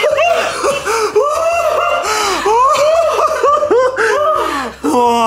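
People laughing hard: a long run of quick, rising-and-falling bursts of laughter. A short held voiced tone sounds near the end.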